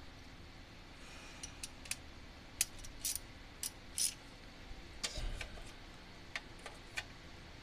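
Irregular sharp metallic clicks and light taps from hand tools and bolts being worked on the engine's valve cover bolts, a dozen or so ticks scattered over several seconds.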